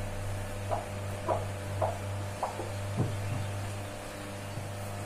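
Whiteboard marker squeaking across a whiteboard in five short strokes about half a second apart, over a steady low hum.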